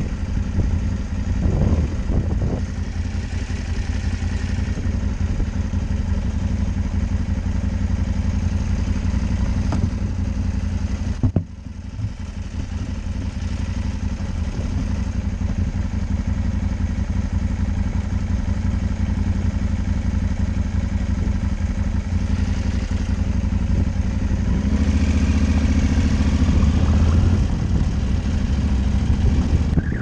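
Off-road motorcycle engine idling steadily while the bike stands still, with a brief break about a third of the way through. It grows louder in the last few seconds as the bike pulls away.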